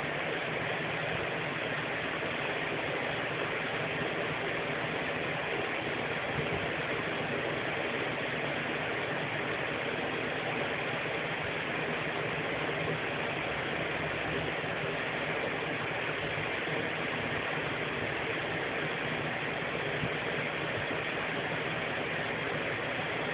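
Steady room noise: an even hiss with a low hum beneath it, unchanging throughout, with no distinct clicks or events.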